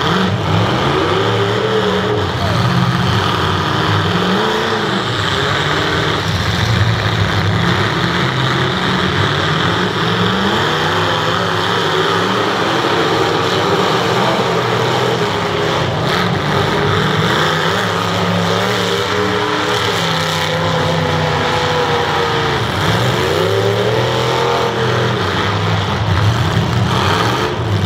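Several demolition derby cars' engines running and revving together, their pitch rising and falling again and again as the drivers accelerate and back off between hits.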